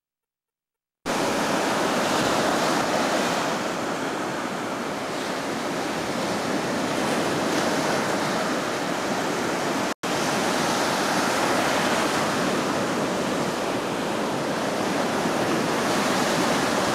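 Ocean surf breaking and washing in, a steady rush of waves. It starts abruptly about a second in out of dead silence and drops out for an instant about ten seconds in.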